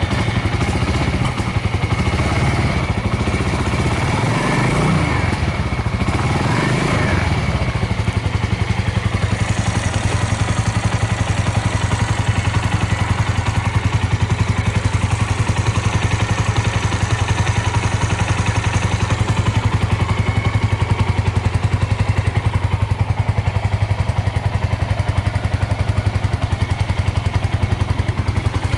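Suzuki Volty's 250 cc single-cylinder four-stroke engine idling just after a cold start, a little uneven for the first several seconds, then settling into a steady idle with no abnormal noise.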